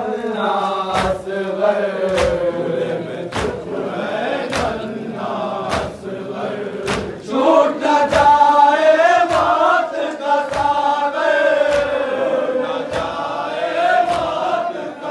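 Crowd of male mourners chanting a noha together, with hand strikes on the chest (matam) landing in unison about once a second. The chanting grows louder about seven seconds in.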